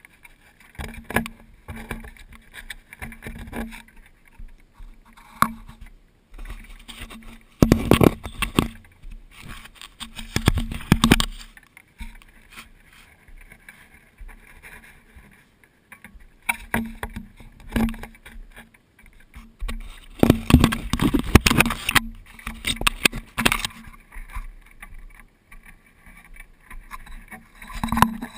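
European badgers nosing, pawing and rubbing against a ground-level action camera. The result is irregular bouts of knocking, scraping and fur brushing on the housing and microphone, with the longest and loudest bout about two-thirds of the way through.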